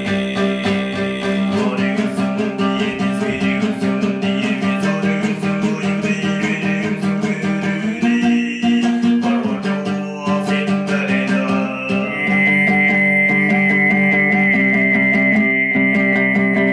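Altai throat singing over a plucked-string accompaniment: a steady low drone with overtones. In the last few seconds a high whistling overtone is held above it.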